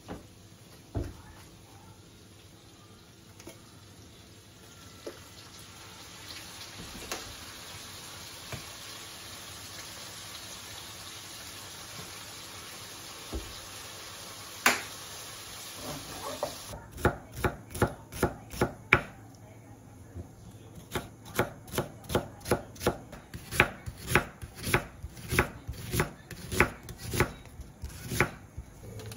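Kitchen knife chopping on a cutting board in a quick, even rhythm of about three strokes a second, with a short break partway; before the chopping starts, only a few light knocks over a steady hiss.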